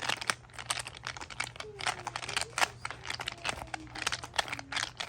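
Silicone pop-it fidget toy bubbles being pressed in quick succession, giving many uneven popping clicks, several a second.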